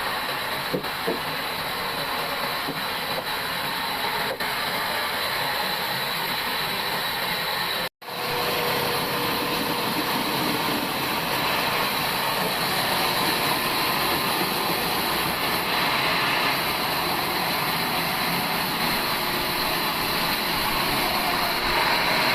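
Bandsaw mill running and sawing through a log: a steady, noisy cutting sound with a thin high whine. About eight seconds in it cuts off for an instant and picks up again.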